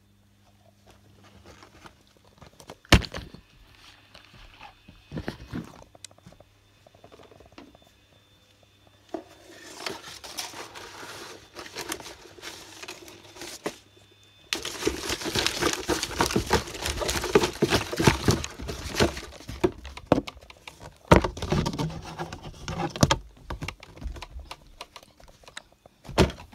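Cardboard toy-set box and packaging being handled and shifted while rummaging through a pile of toys: rustling and scraping, busiest in the second half, with several sharp knocks.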